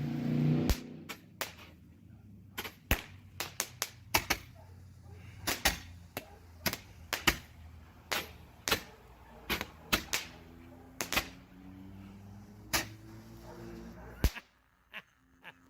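Two Dominator Blue Thunder Roman candles firing together: an irregular string of sharp bangs as the balls launch and burst into their thunder reports, the last about 14 seconds in. Not super loud.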